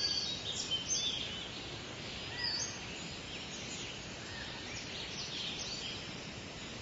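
Small birds chirping, with short high notes that slide up and down scattered through, over a steady outdoor background hiss.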